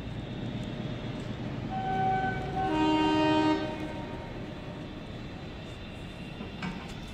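Train horn blowing about two seconds in: a higher note for about a second, then a lower, louder note for about a second. A steady low rumble runs underneath.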